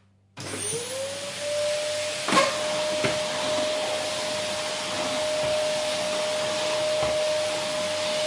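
Vacuum cleaner switched on about half a second in: its motor whine rises in pitch over about a second, then settles into a steady running tone over a loud rushing hiss. A sharp knock sounds about two seconds in, with a couple of fainter knocks later.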